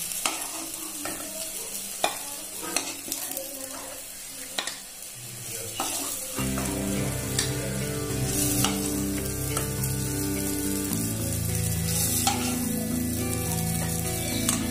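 Elephant foot yam fritters sizzling in hot oil in a kadai, with a metal spatula scraping and tapping against the pan as they are lifted out. Soft background music comes in about six seconds in.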